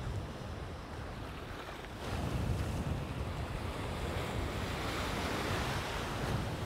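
Baltic Sea waves washing and breaking in the shallows around a wading angler, with wind buffeting the microphone. The surf gets louder about two seconds in as a wave breaks close by.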